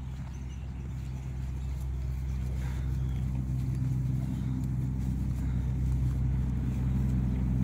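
A motor vehicle's engine running at a steady low pitch, growing gradually louder.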